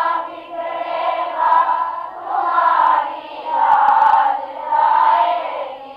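A congregation singing a devotional bhajan in chorus, in several long, sustained phrases.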